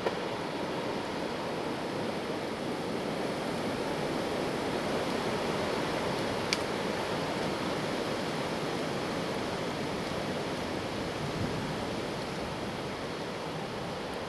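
Strong wind blowing in a steady rush that swells slightly, from a windstorm. A single sharp click about six and a half seconds in.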